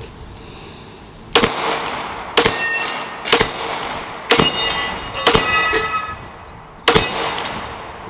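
Glock 43 9mm subcompact pistol fired at steel Texas Star plates 15 yards away: about seven shots roughly a second apart, most followed by the ringing clang of a struck steel plate.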